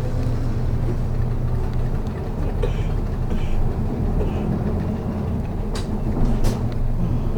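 City bus engine running with a steady low drone, heard from inside the passenger cabin, with two sharp clicks near the end.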